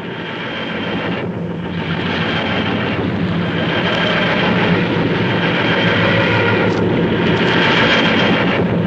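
The TARDIS materialisation sound effect: a mechanical drone that swells and fades in repeated cycles and grows steadily louder.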